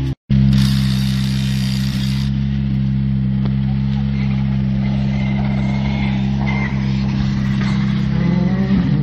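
Rally car engine idling steadily. Near the end a second rally car, a Škoda Fabia, comes up with its engine revving and rising in pitch.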